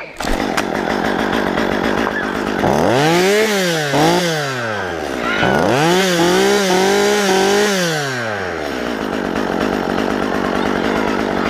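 Two-stroke chainsaw running at idle and revved up twice, the engine pitch climbing and dropping back, the second rev held high for about two seconds before settling back to idle.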